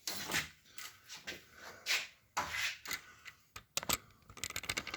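A workshop stand being dragged and shoved into place: a string of scrapes and knocks, then a quick run of rattling clicks near the end.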